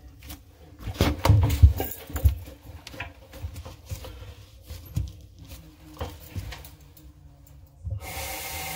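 Gloved hand gripping and turning the plastic slip nut on a sink P-trap: irregular rubbing, scraping and small knocks, loudest from about one to two seconds in. Near the end a steady hiss starts.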